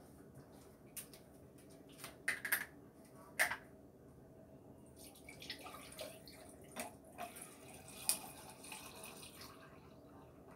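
Pineapple juice poured from a plastic bottle into a glass, a faint splashing trickle with small clinks, most likely from ice in the glass, from about five seconds in until near the end. A few sharp clicks come before it, about two and three seconds in.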